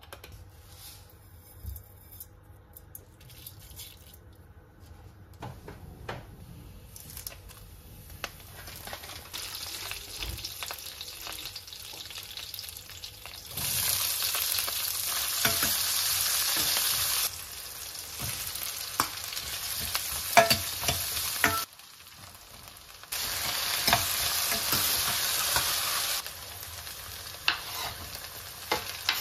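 Oil frying in a stainless steel pan: a faint sizzle that builds, then loud sizzling as chopped onion, green chilli and curry leaves fry, swelling loudly twice, with scattered clicks of stirring.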